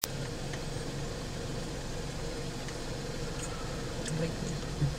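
Car engine idling steadily, a low even hum, with a couple of brief low bumps near the end.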